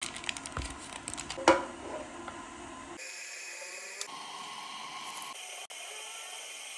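Baking paper crinkling and crackling as it is pulled from an aluminium cake pan, with one sharp knock about one and a half seconds in. After about three seconds only a faint steady hiss remains.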